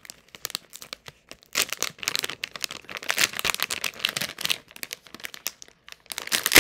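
Shiny metallic foil bag crinkling and crackling as hands work it open: a long stretch in the middle and a shorter, louder one near the end.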